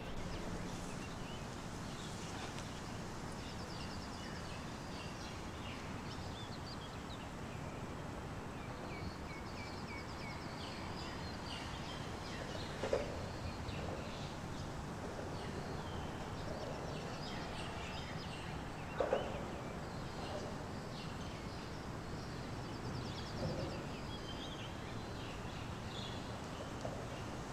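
Outdoor ambience: a steady low background noise with many small bird chirps and short trills. Two brief louder calls stand out, about halfway through and again some six seconds later.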